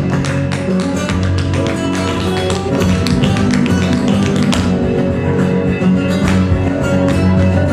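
Flamenco-style music with guitar, mixed with rapid tap-shoe strikes on the stage floor.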